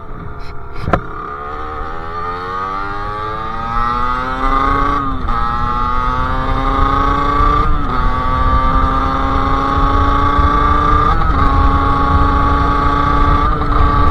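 Sherco SM-R 50's 50cc two-stroke engine through a KRM expansion-chamber exhaust, accelerating up through the gears: the pitch climbs steadily and drops briefly at each upshift, about three times. Low wind rumble runs under it.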